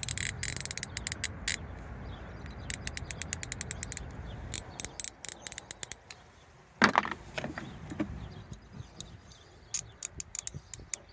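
Hand socket ratchet clicking in quick runs as it is turned back and forth, with a single louder clunk about seven seconds in.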